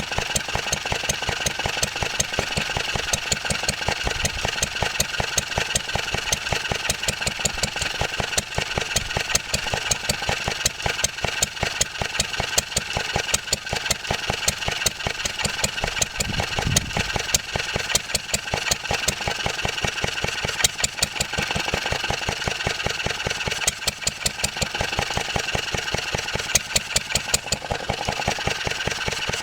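1954 Wolseley WD8 stationary engine running steadily off load, its drive belt thrown off, with a fast, even beat of firing strokes.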